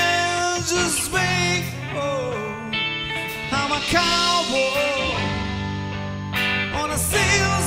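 Rock band playing live: electric bass and guitars under a melodic lead line that bends in pitch, with a few sharp hits.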